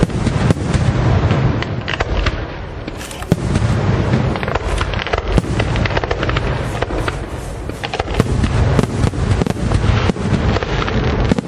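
Aerial fireworks shells bursting in rapid, overlapping succession: a dense, unbroken run of booms and sharp cracks over a continuous low rumble.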